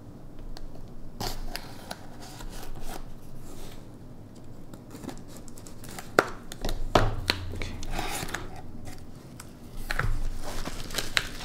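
A folding knife blade slitting packing tape and scraping along a cardboard shipping box, with irregular scratches and ticks. Near the end the box flaps are pulled open and the bubble wrap inside rustles.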